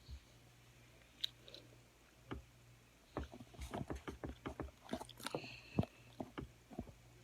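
Eating close to the microphone: irregular wet clicks and smacks of chewing, sparse at first and more frequent from about three seconds in, over a faint steady hum.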